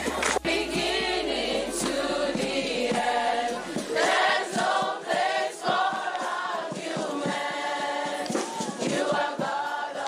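Large crowd singing a worship song together, with hands clapping along.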